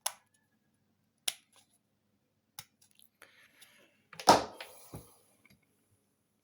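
A few sharp clicks and small knocks, then a louder clatter about four seconds in and one more knock. These are crocodile-clip leads and a small RC-plane fuel pump being handled. The pump itself does not run: it gets no power or is dead.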